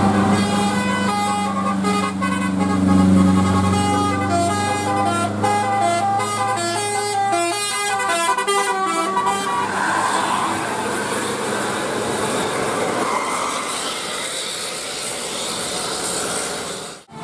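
Bus telolet horn, a multi-tone musical air horn, playing a tune of short stepped notes over a low engine hum for about nine seconds. The horn then stops and a steady rushing noise carries on.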